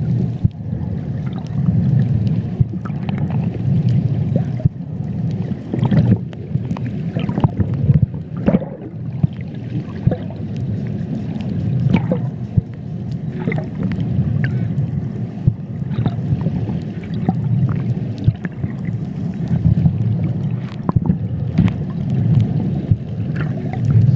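Muffled underwater noise: a low rumble that swells and fades every second or two, with many scattered clicks and crackles.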